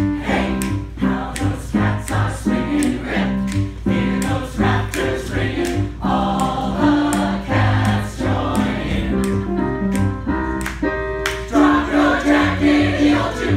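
A group of singers singing together over pop backing music with a steady beat; the massed voices come in stronger near the end.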